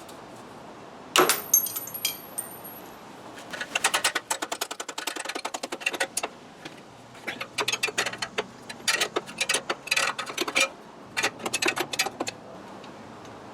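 Pliers working a cotter pin out of a motorcycle's rear axle, giving rapid small metal clicks and clinks in several bursts. A single sharp metallic clink with a brief ring comes about a second in.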